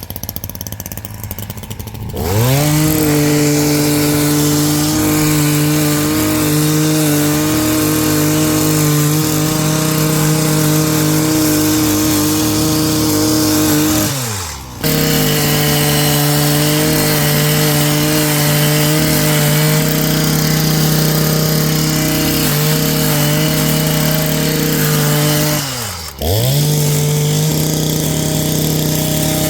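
Power tool motor spinning up to speed about two seconds in and running at a steady high pitch. Twice, near the middle and again near the end, it briefly drops off and spins straight back up, as the trigger is let go and squeezed again.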